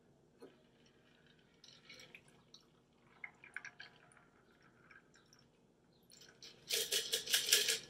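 A shaken cocktail is poured from a metal shaker tin into a glass of ice: faint liquid pouring and small clinks, then a loud rattling clatter of ice against metal and glass near the end as the tin is tipped and emptied.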